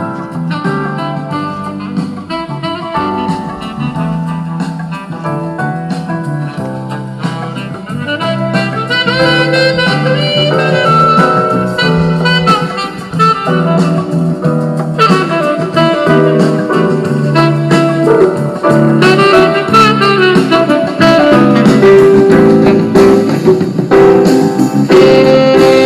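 Instrumental break of a soft-rock love song with a saxophone lead over bass and drums, played through a home-built column speaker with a Broadway B4040 woofer and a Kevler GT100 tweeter. The music grows louder about eight seconds in.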